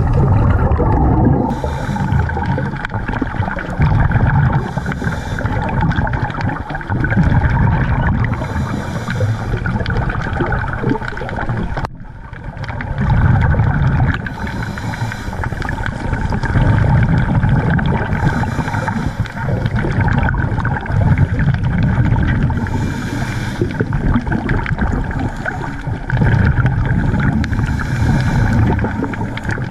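Scuba diver's regulator breathing heard underwater: repeated surges of rumbling exhaust bubbles every few seconds, with hissing inhalations between them.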